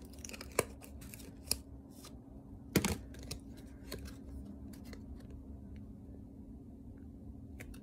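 A trading card being handled and slid out of its clear plastic sleeve: light plastic crinkles and clicks at uneven intervals, the sharpest just under three seconds in.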